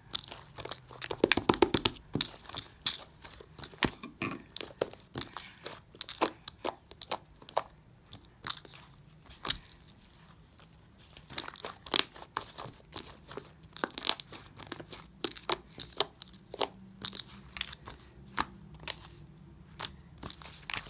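Slime being squeezed and stretched by hand, giving irregular crackling clicks and pops, with a dense, loud flurry of them about a second in.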